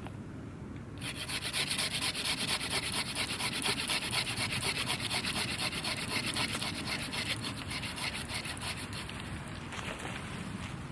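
Silky F180 folding saw cutting through a tree limb with quick, steady back-and-forth strokes. The sawing starts about a second in and weakens and stops near the end.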